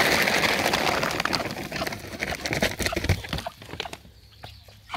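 Chicken feed pouring out of a container onto the ground, a loud rushing hiss that tails off about two seconds in. Then scattered quick clicks and taps of hens pecking at the spilled grain.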